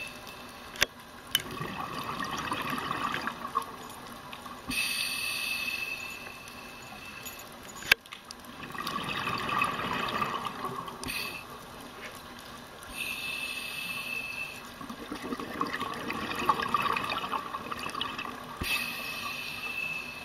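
Scuba regulator breathing underwater: hissing inhales with a steady whistle-like tone alternate with longer rushes of exhaled bubbles, about three breaths in all. Two sharp clicks, the loudest sounds, come about a second in and near the middle.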